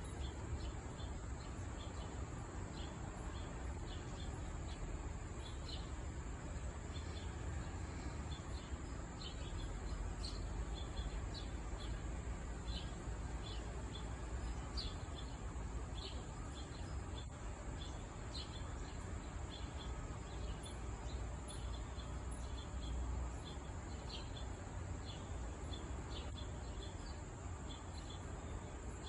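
Outdoor insect chorus: a steady high-pitched trill runs throughout, with scattered short chirps over a low rumble.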